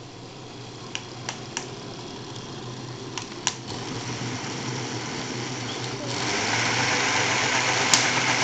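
Stand blender motor running steadily, churning milk with raspberries and cherries into a frothy pink shake. It grows louder and steps up about six seconds in, with a few light clicks in the first few seconds.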